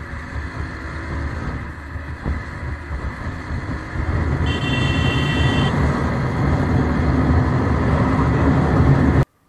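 Bajaj Pulsar NS200's engine and wind rush at highway speed as the bike accelerates, growing louder from about four seconds in. A brief high-pitched tone sounds about halfway, lasting about a second, and the sound cuts off abruptly just before the end.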